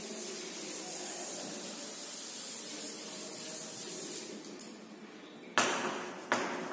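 Blackboard duster rubbing over a chalkboard, a steady soft hiss for about four seconds. After a short lull, chalk starts striking the board about five and a half seconds in, two sharp strokes, as writing begins.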